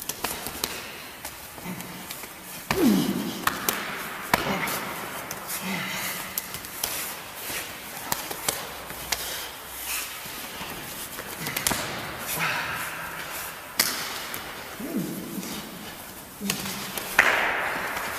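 Bare forearms and hands clashing and slapping in quick, irregular knocks as two men spar Wing Chun style, with a few short grunts and hard exhales between the exchanges.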